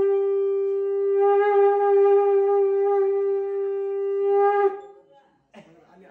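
Conch shell (shankha) blown in one long, steady, horn-like note, which cuts off abruptly about four and a half seconds in.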